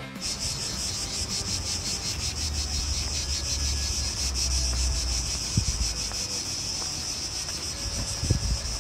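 Insects chirring outdoors in a steady, high-pitched, finely pulsing drone. A low rumble sits underneath for a few seconds in the first half, and there are a few faint knocks.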